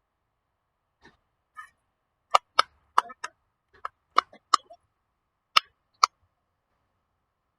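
A plastic fidget toy clicking: about ten sharp clicks at uneven spacing over roughly four seconds, after a few fainter ticks.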